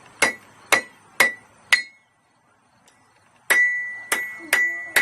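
Blacksmith's hammer striking iron on an anvil: four even blows about two a second, a short pause, then more blows with the anvil ringing after each.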